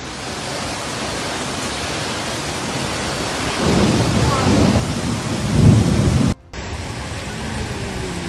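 Torrent of muddy floodwater rushing down a street in heavy rain, a steady loud rush. Deeper low rumbling swells through the middle, then the sound breaks off briefly about six seconds in and the rush resumes.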